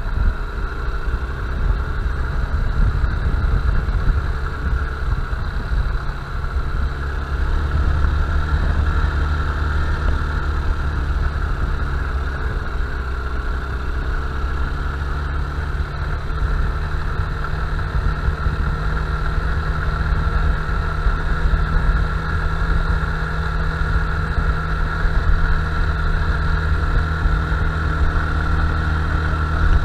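Honda Bros 160 motorcycle's single-cylinder engine running steadily at an even speed, with no revving up or down.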